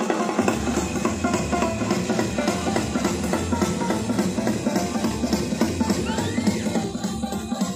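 Music with a drum-kit beat and a deep bass line, cutting in suddenly at the start.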